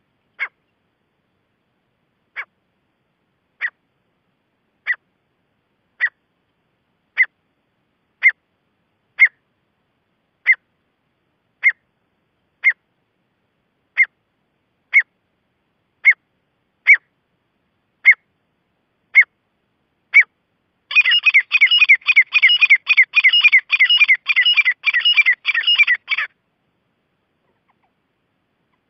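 Gray francolin calling: short sharp single notes about once a second that grow louder, then, after about twenty seconds, a fast run of repeated calls for about five seconds that stops abruptly.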